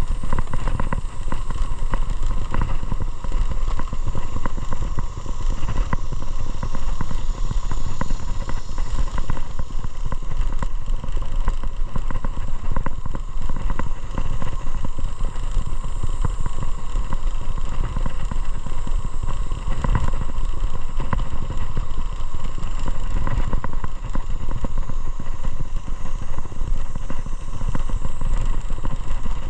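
Motorcycle running steadily while being ridden, with a dense, even rumble throughout.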